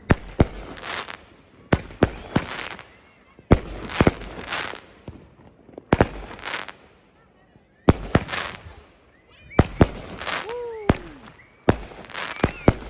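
Multi-shot consumer firework cake going off: sharp bangs at uneven intervals of about one to two seconds, each trailed by about a second of crackle.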